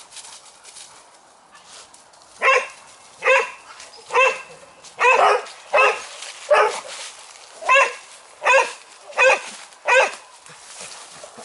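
A spaniel barking, about ten barks at a steady pace, each under a second apart, beginning about two seconds in.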